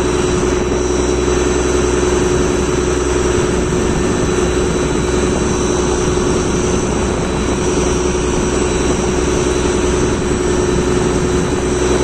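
Fishing boat's engine running hard under way, a loud steady drone with one strong held tone, on a test run of a newly fitted gearbox.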